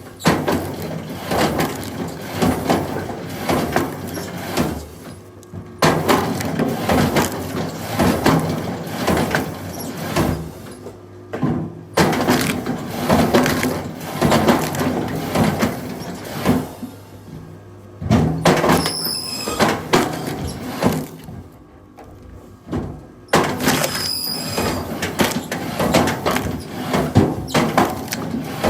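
Firewood being split: wood cracking, splintering and breaking apart, in loud passages that start and stop abruptly every few seconds.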